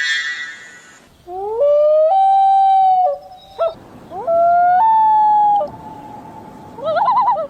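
An animal's long, howl-like cries: two calls, each rising in pitch in steps and then held for about a second. Near the end comes a short wavering call.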